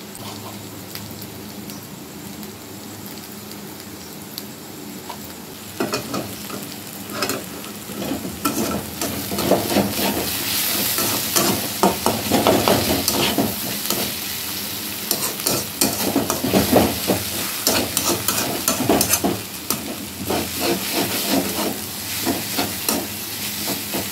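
Metal spatula scraping and clinking against a steel wok while diced potatoes and onions are stirred and fried, over a steady sizzle. The first six seconds or so are quieter, then the stirring becomes brisk, with frequent sharp scrapes.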